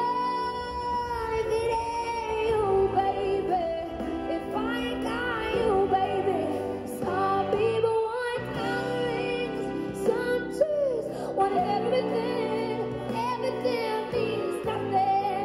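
A young woman singing a song through a handheld microphone and a small Roland Cube busking amplifier, holding and sliding between notes, over a steady instrumental backing.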